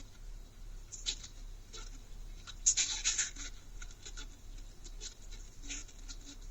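Irregular light scratching and rustling noises, loudest in a short cluster about three seconds in, over a low steady hum.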